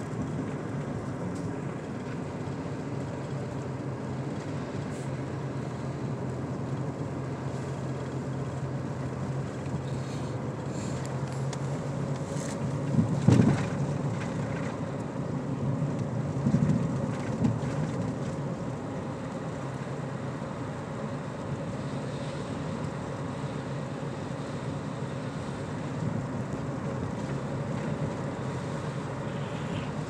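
Car cabin noise while driving on a snow-covered highway: a steady drone of engine and tyres on the road. There is a short, sharp louder burst about 13 seconds in and a few smaller swells a few seconds later.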